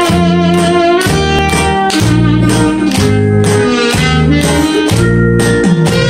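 Instrumental backing track for a song: a steady beat of about two a second under a sustained string-like melody.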